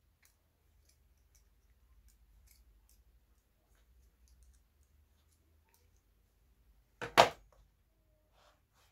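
Faint small metallic clicks and ticks of needle-nose pliers turning a threaded eyelet in a cello bow frog. One brief, much louder burst of noise comes about seven seconds in.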